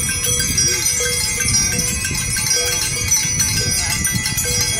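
Many bells ringing together in a continuous clamour of overlapping tones, with fresh strikes every fraction of a second.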